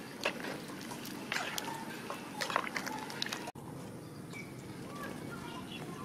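Metal ladle stirring soup at the boil in an aluminium pot: liquid sloshing, with several sharp clinks of ladle against pot in the first half. The sound cuts out for an instant about halfway through, then the stirring goes on more quietly.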